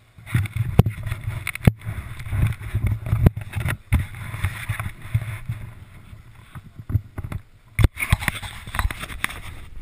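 Muffled low rumbling of wind and handling on an action camera's microphone, broken by several sharp knocks from the camera and ski gear being moved.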